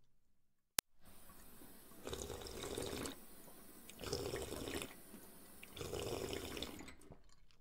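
Underwater ambience of bubbling, swirling water that swells and fades in waves about every two seconds. A brief drop to silence ends with a single sharp click about a second in.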